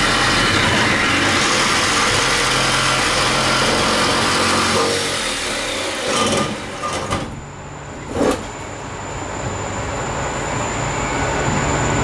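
A corded jigsaw cutting through the steel sheet of a van's sliding door: a loud, steady saw rattle. It eases off briefly a little past the middle, with a single knock, then picks up again.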